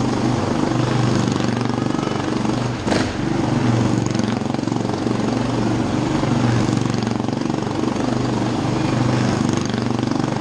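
Motorcycle engine running continuously as the bike circles the wall of death, its drone swelling and easing every second or two. A brief sharp crack about three seconds in.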